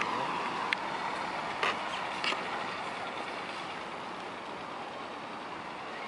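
Street traffic noise: the rush of a passing vehicle slowly fading away, with a few short clicks in the first couple of seconds.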